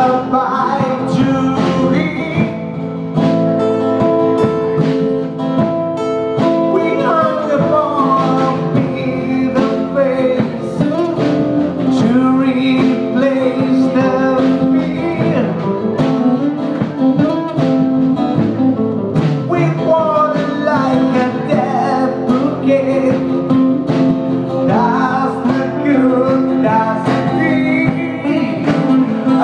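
Live acoustic band playing a song: two steel-string acoustic guitars strummed, a drum kit keeping the beat, and a man singing into a microphone.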